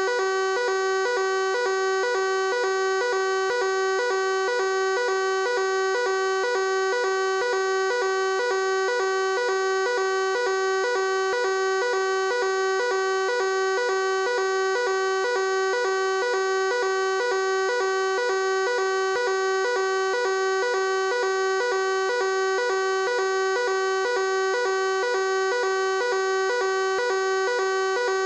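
Fire alarm sounding continuously: one steady, unbroken tone at a fixed pitch that never pauses or changes.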